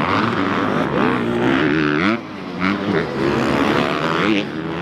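Several dirt bike engines revving up and easing off as the bikes ride over the jumps. Their pitch rises and falls in overlapping waves, and the sound drops briefly about two seconds in.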